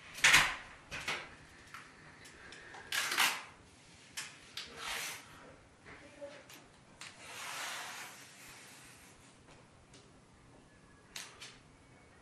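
Masking tape being pulled off its roll in about five short, noisy strips, the fourth one longer, with small clicks and rubbing as it is pressed along a wooden ceiling beam.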